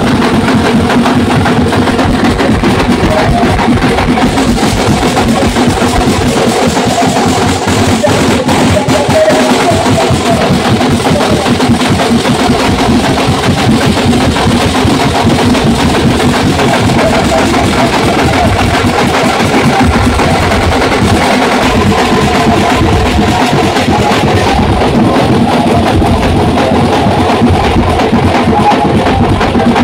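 Loud music driven by continuous, rapid drumming.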